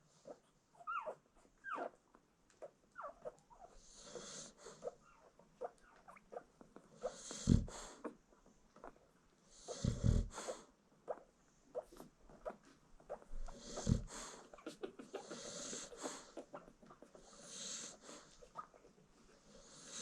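American Bully mother dog snoring in slow, wheezy breaths every few seconds while newborn puppies nurse, with many small wet clicks and smacks and a few short rising puppy squeaks near the start. Three soft low thumps, the loudest sounds, come in the middle.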